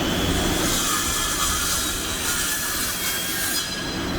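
Electric power saw spinning up and cutting, a loud hiss with a steady whine that cuts off suddenly about three and a half seconds in.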